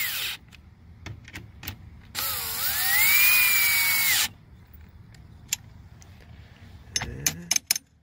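Cordless drill with a socket bit driving the tow mirror's mounting fasteners: a short burst at the start, then about two seconds of the motor spinning up in a rising whine, holding steady and stopping abruptly. A few sharp clicks near the end.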